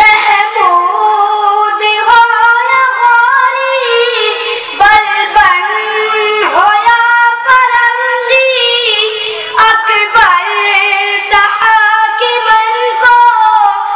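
A boy singing a nazm (an Urdu poem) solo in a high voice, with long held notes that bend and glide between phrases.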